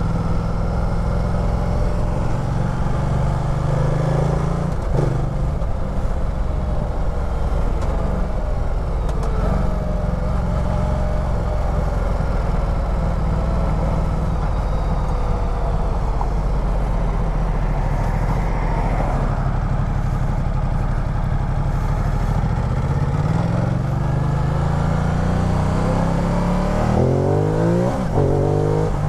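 Ducati Multistrada 1200's 1198 cc Testastretta DVT L-twin engine running under way in town traffic, with wind rush over the bike. The engine note holds fairly steady for most of the time, then climbs sharply in pitch near the end as the bike accelerates hard in second gear.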